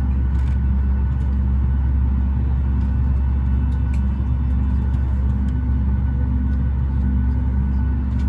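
Steady low cabin rumble of a Boeing 737 MAX 9 with its CFM LEAP-1B engines running, a faint steady hum over it and a slow throb in the low hum.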